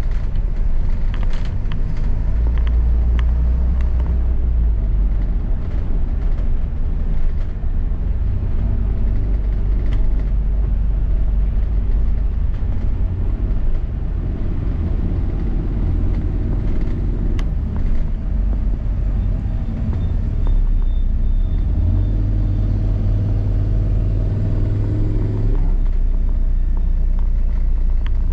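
London double-decker bus driving, heard from inside the bus: steady engine and road rumble. A low drone grows stronger late on and cuts off suddenly near the end.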